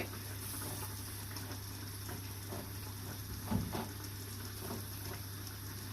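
Aubergine slices frying in a non-stick frying pan: a steady faint sizzle over a constant low hum, with a couple of soft knocks about three and a half seconds in.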